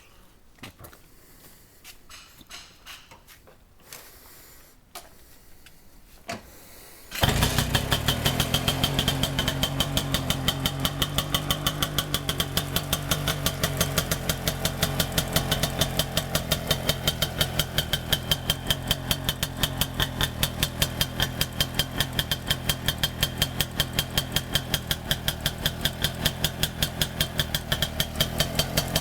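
A few faint clicks and knocks, then about seven seconds in the DKW RT 250's single-cylinder two-stroke engine starts and keeps running at a steady idle with an even beat.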